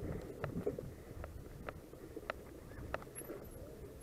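Mountain bike rolling over bumpy grass, with a low rumble of tyres and wind on the camera microphone. The bike rattles with sharp clicks about every half second to second.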